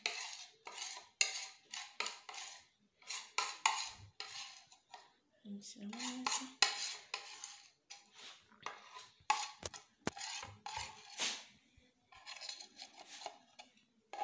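Metal spoons scraping and clinking against each other and the mixing bowl in many short, irregular strokes, as honey is scraped off one spoon with another onto flour and mashed banana.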